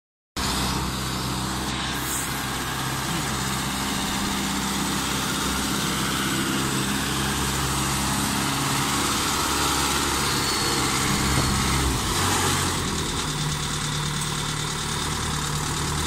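Engine of a small self-propelled corn harvester running steadily as the machine drives, with a change in the engine note about twelve seconds in.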